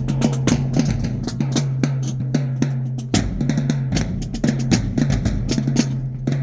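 High school marching band percussion section playing a fast, busy rhythm of snare and bass drum hits over a steady low held tone.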